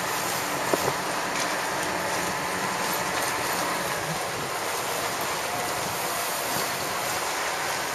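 Steady rush of wind and water noise out on the water, with a few faint clicks.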